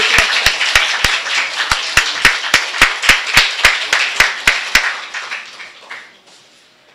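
Congregation applauding, with one person clapping close to the microphone at about four claps a second; the applause dies away about five to six seconds in.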